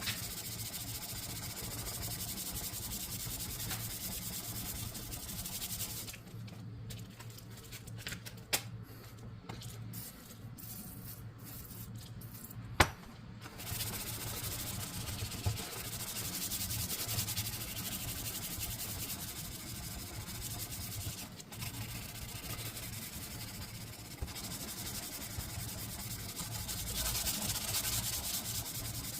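Sanding of a forged knife blade: a steady abrasive rubbing that stops for several seconds in the middle. During the pause there are two sharp taps, the louder one just before the sanding resumes.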